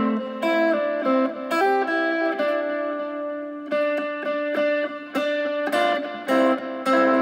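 Fender Stratocaster electric guitar playing a melody of separate picked notes, some left ringing under the next ones.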